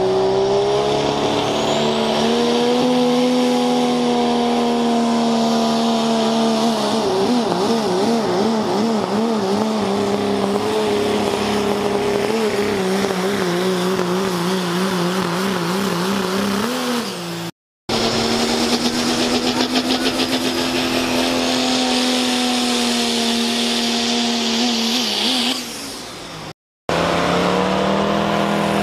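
Turbo diesel pickup pulling truck, a Cummins-powered Dodge Ram, at full throttle pulling the sled, with a high turbo whine over the engine note; partway through, the engine pitch wavers rapidly up and down. After a cut there is a long steady full-throttle stretch that drops off, then, after a second cut, another diesel pulling truck revving up near the end.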